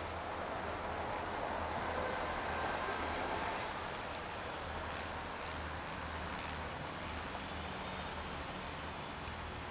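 City street traffic: a steady hum of passing vehicles, swelling louder about two to three seconds in.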